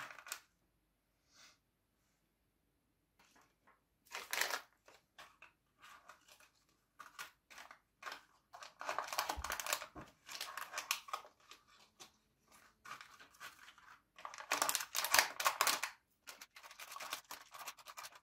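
Small plastic and antistatic bags of electronic components crinkling and rustling as they are handled and packed into a plastic kit case, with light clicks of parts against the case. It comes in irregular bursts, the loudest near the middle and a few seconds before the end.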